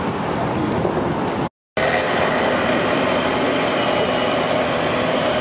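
Steady city traffic rumble from vehicles on the street and the elevated highway, with a steady high whine after a split-second gap about a second and a half in.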